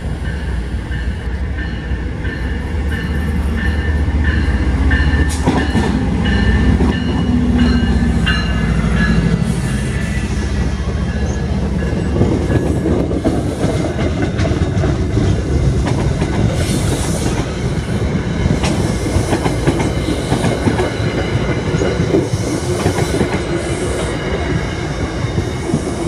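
MBTA HSP46 diesel locomotive passing, its engine running heavily under steady high tones. After about ten seconds it gives way to the coaches rolling by, wheels clattering over the rail joints with bouts of high wheel squeal.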